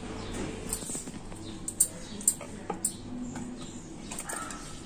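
Wooden rolling pin and round wooden rolling board being handled for papad dough: a few sharp clicks and light knocks, with a short faint high-pitched sound near the end.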